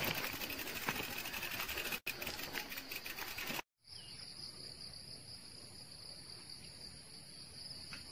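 Scuffing and rustling noise as a mountain bike is pushed on foot up a dirt trail. Then, after a sudden cut, a steady high drone of insects chirring.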